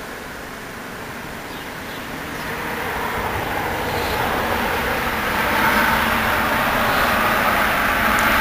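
Distant engine noise: a steady rushing rumble that swells over several seconds and then holds.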